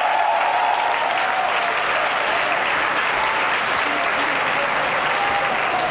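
A large crowd applauding steadily, with a few voices calling out in it near the start.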